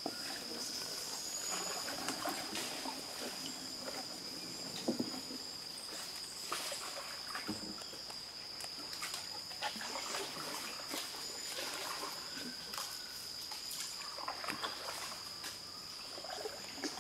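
A wooden dugout canoe being paddled, with irregular small paddle splashes and water trickling, over a steady high-pitched drone.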